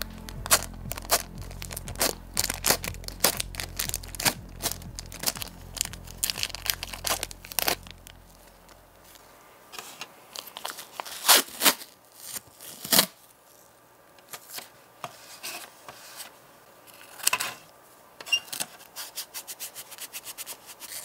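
Clear plastic window film being peeled off a die-cast model car body, crackling in quick clicks over background music that fades out about eight seconds in. Then a few sharp snaps and tearing as masking tape is pulled from the roll, and crackling as the tape is pressed and rubbed onto the metal body.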